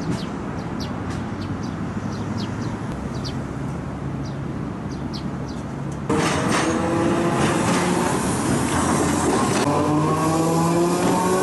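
Steady street-and-river ambience with short high chirps, then about six seconds in a sudden change to a Hiroden 700-series streetcar passing close on street track: wheels running on the rails and its traction motors whining, the whine rising in pitch as it gathers speed.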